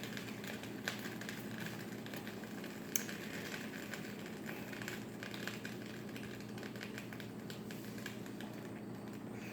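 Grilled cheese sandwich frying in butter in a pan, a steady fine crackling sizzle with a couple of louder pops about one and three seconds in, over a steady low hum.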